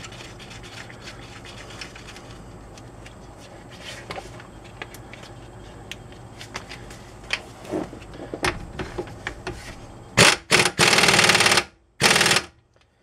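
Pneumatic impact wrench spinning a tie rod end's castle nut down in several bursts, two short, one longer, then one more, starting about ten seconds in. Before that, only faint clicks of parts being handled.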